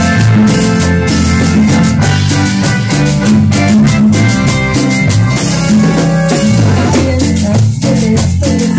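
Live band playing loud dance music: a moving bass line under drums and congas in a steady rhythm.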